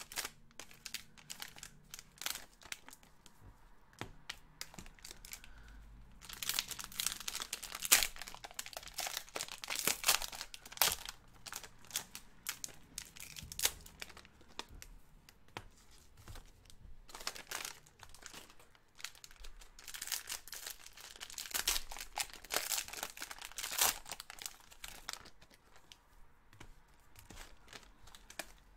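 Plastic wrappers of basketball trading-card rack packs crinkling and being torn open by hand, in bursts with quieter stretches between.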